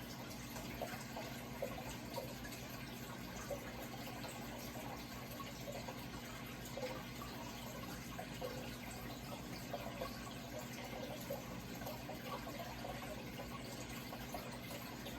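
Water running and trickling steadily with small bubbling splashes, over a low steady hum.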